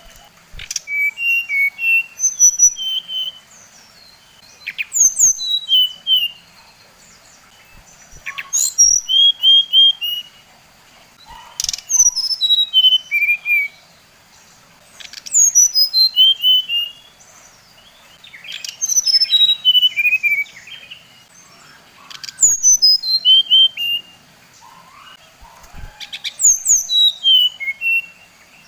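SRDC songbird (sikatan rimba dada coklat) singing: a phrase repeated about every three and a half seconds, each a quick run of clear whistled notes stepping down in pitch, the kind of song played as a lure to provoke other SRDC.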